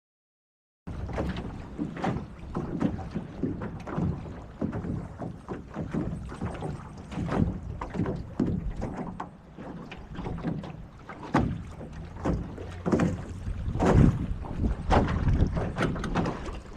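Wind buffeting the microphone and water splashing aboard a small sailboat, an uneven rush with gusty surges that starts about a second in.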